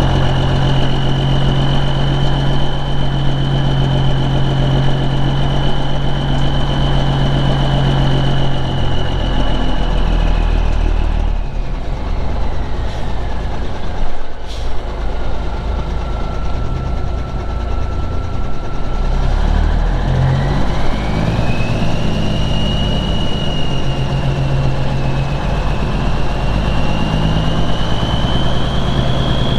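Semi truck's engine running as it tows a side dump trailer, with a high whine that follows the engine speed: it falls as the revs drop about a third of the way in and climbs back up later.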